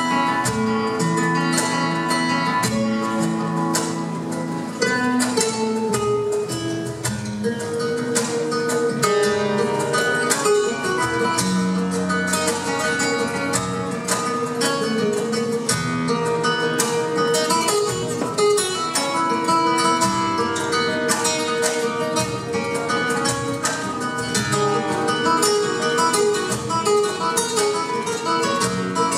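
Two flamenco guitars playing a duet, a fast, steady stream of plucked notes over held bass notes.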